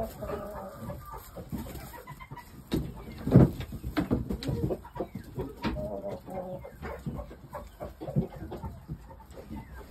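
Chickens clucking in short calls, with a loud thump about three and a half seconds in.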